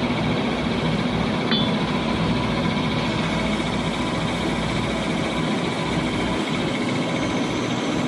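CNC lathe's steady machine hum, with a single short click about a second and a half in.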